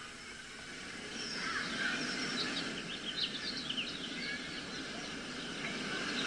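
Birds chirping, many short quick calls, over a steady rushing background that slowly grows louder.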